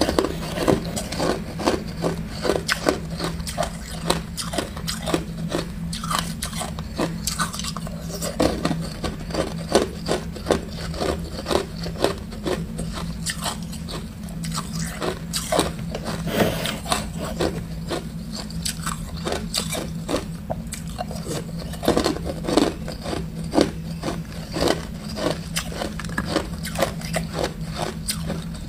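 Chunks of ice being bitten and crunched in a person's mouth: a rapid, continuous run of sharp crunches, several a second.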